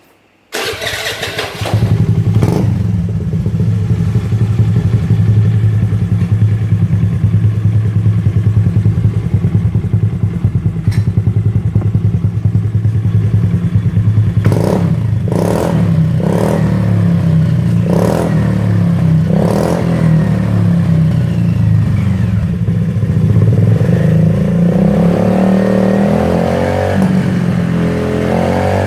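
Honda Dio scooter's single-cylinder engine running through a Two Brothers-style carbon-finish aftermarket silencer. It starts about half a second in and settles to an idle. A little past the middle the throttle is blipped about five times in quick succession, and near the end it is held at higher revs.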